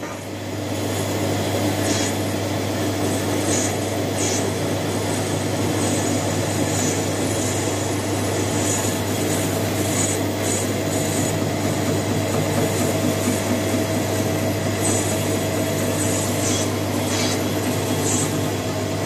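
Metal lathe running under cut, its tool turning down a rusty metal bar and throwing off curled chips: a steady motor hum under the scraping hiss of the cut, with brief higher squeals from the tool now and then. The sound comes up over the first second.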